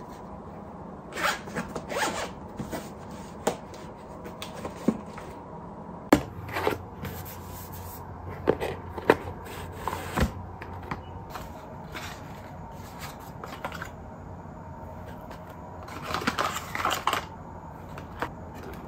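Unboxing handling noise: a zippered carry case opened and handled, with cardboard packaging and its foam insert rubbed, tapped and slid apart in scattered clicks, scrapes and rustles. A busier flurry of rustling comes near the end.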